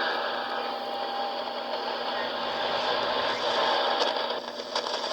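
Shortwave receiver hiss and static from an Icom IC-735 tuned between stations during a band scan. A faint steady whistle of a carrier comes in from about half a second to two seconds in, and a few clicks come near the end.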